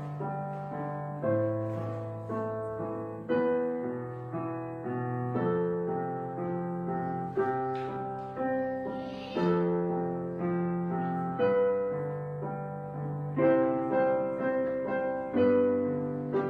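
Background piano music: slow, gentle chords, with a new chord struck about every two seconds and left to ring out.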